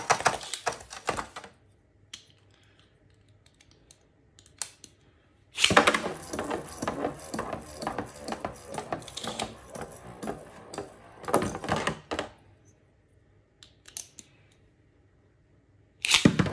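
Beyblade spinning tops clattering against each other and against the walls of a plastic Beyblade stadium, a dense rattle of sharp clicks and knocks. There is a short burst at the start, a longer one of about six seconds in the middle, and another beginning near the end, with near quiet and a few single ticks in between.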